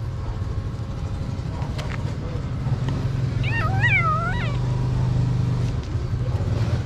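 Tiny kitten meowing once, a wavering high-pitched call of about a second near the middle, while it eats, over a steady low rumble.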